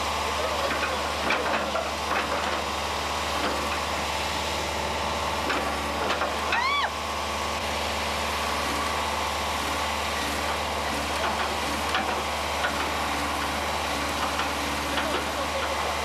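Bulldozer engine running steadily, with scattered small clicks and faint voices in the background. About six and a half seconds in, a brief high call rises and falls.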